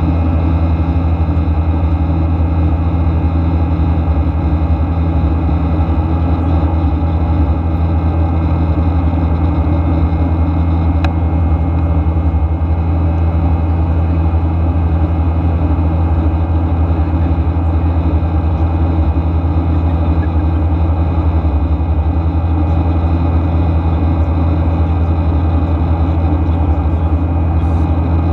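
Steady cabin noise of a Boeing 737-800 in flight, heard from a window seat over the wing: the CFM56-7B turbofan's drone and the rush of airflow, with a deep steady hum underneath.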